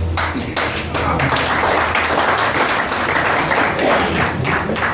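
Audience applauding, a dense patter of many hands clapping with a few sharper individual claps standing out.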